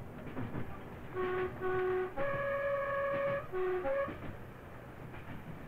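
British Rail diesel train's two-tone horn sounded as a warning: two short low notes, a long high note, then a quick low-high pair, over the steady rumble of the train running on the line.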